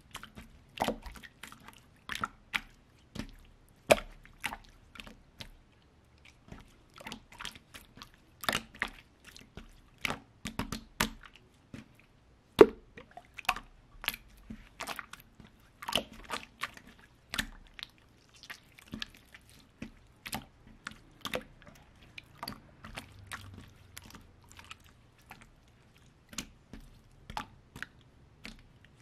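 Hands squeezing, poking and pressing a lump of clear jelly slime: irregular wet squelches and sharp pops of trapped air bubbles, a few a second, with one louder pop about halfway through.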